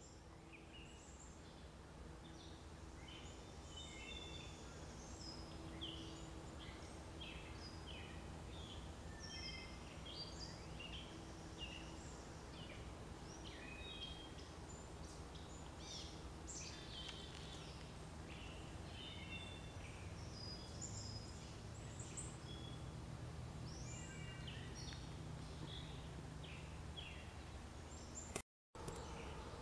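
Songbirds chirping and singing outdoors, many short calls one after another, over a steady low hum. The sound cuts out completely for a moment near the end.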